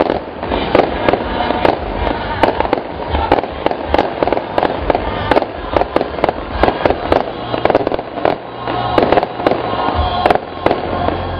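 Fireworks display: aerial shells bursting in quick succession, a dense string of loud, sharp bangs several a second, easing briefly about eight seconds in.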